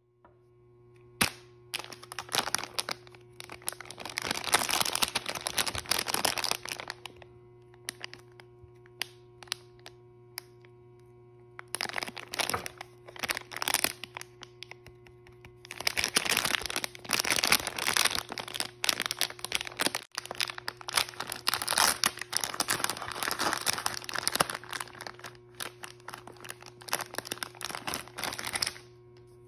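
Foil blind bag and thin plastic wrapper crinkling and tearing as they are handled and opened: a sharp crack about a second in, bursts of crinkling, then a long stretch of dense crinkling and rustling through the second half.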